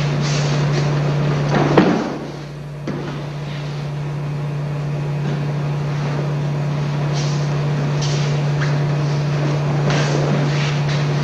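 Steady low electrical hum with hiss, the noise bed of an old videotape soundtrack, with one sharp thump a little under two seconds in.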